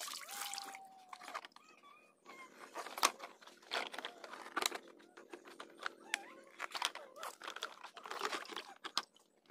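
Hard plastic toy dump truck parts knocking and clicking as the dump body is fitted onto the chassis and tipped up by hand.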